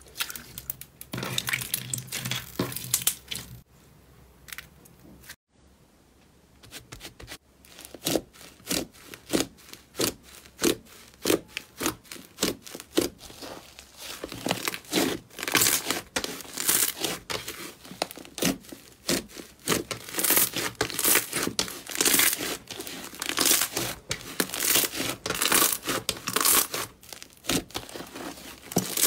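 Slime being squeezed and stretched by hand. After a short quiet spell, a thick slime full of air pockets gives a long run of quick crackling pops as it is pulled apart.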